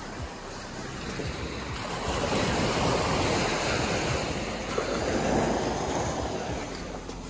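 Small ocean waves breaking and washing up a sandy beach, the surf swelling about two seconds in and again around five seconds.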